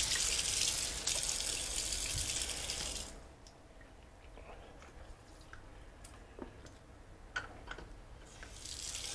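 Water running from a tap into a sink, shut off about three seconds in; then a few faint drips and clicks before the tap runs again near the end.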